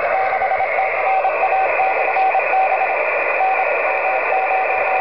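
Morse code identifier of a 10 GHz amateur radio beacon heard through a ham receiver: a single steady-pitched tone keyed on and off in dots and dashes over loud, steady receiver hiss.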